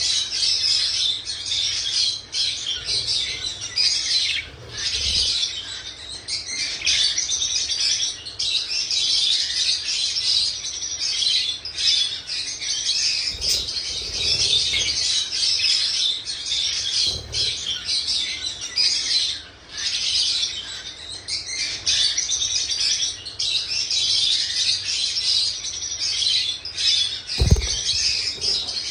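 Pet birds chirping and chattering almost without a break, with many quick high chirps. A single low thump comes near the end.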